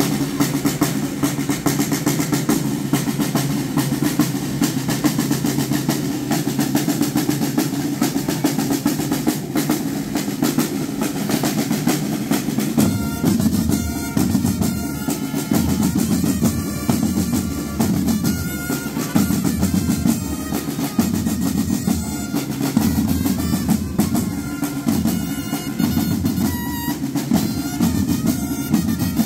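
Procession drums, snare and bass, playing a continuous fast roll. About thirteen seconds in, deeper pitched notes join the drumming.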